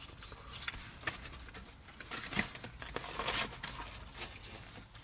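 Close-up eating sounds: chewing a bite of fried chicken, with small wet clicks and crackles, and the rustle of a paper food box as a hand reaches into it.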